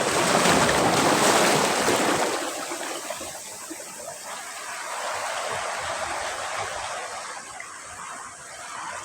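Sea waves breaking on a beach: a loud crash and rushing wash in the first two seconds, then fading to a softer foaming wash that swells slightly again.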